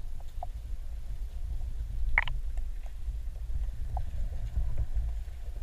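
Low, steady underwater rumble picked up by a submerged camera in the sea, with a few faint clicks and one short squeak about two seconds in.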